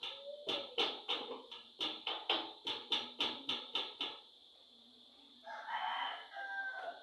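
A run of sharp knocks, about three a second, for the first four seconds, then a rooster crowing once near the end.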